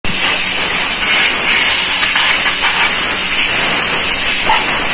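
Compressed-air blow gun blasting air into a drum-brake hub: a loud, steady hiss as the brake is blown clean.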